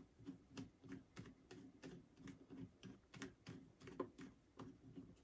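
Faint, irregular clicking of a hand screwdriver turning small screws through a plastic clamp block into nuts, about three clicks a second.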